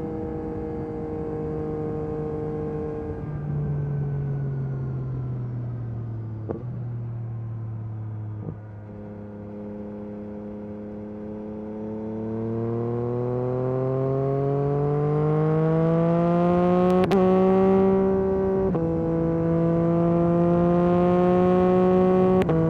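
Yamaha MT-09 SP's 890 cc inline three-cylinder engine through an Akrapovic carbon racing exhaust, under way. The revs fall and stay low for several seconds, then climb steadily. The note drops sharply at an upshift and climbs again, with another shift near the end.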